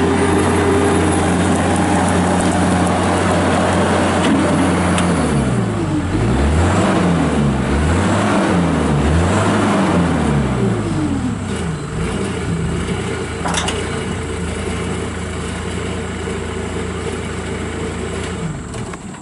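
Turbo diesel engine of a New Holland LX665 skid steer loader running. Its speed rises and falls several times in the middle, then it runs steadily and stops near the end.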